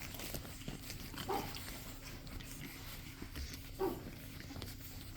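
Pug puppy giving two short cries, about a second in and again near four seconds in.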